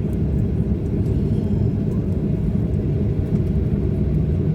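Steady low rumble heard from inside the cabin of a Boeing 737-800, with no change in pitch.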